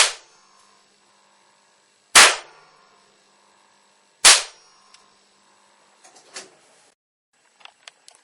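Spark plug blasted by a high-current electrical discharge: three loud, sharp bangs about two seconds apart, each with a short ringing tail, followed by a few faint crackles and ticks.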